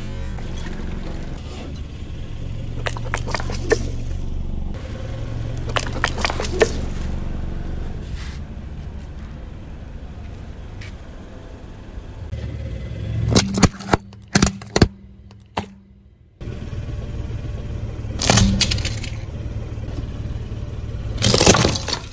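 Car engine running low and steady while objects are crushed under the tyre, giving several clusters of short sharp cracks and crunches.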